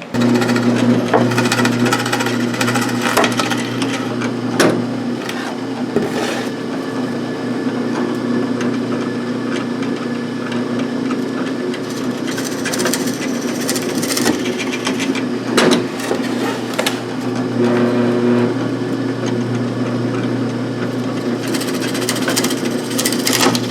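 Power drill motor running steadily while boring holes in a wooden board for the doorknob shanks, with a few sharp knocks, one about four and a half seconds in and another near the middle.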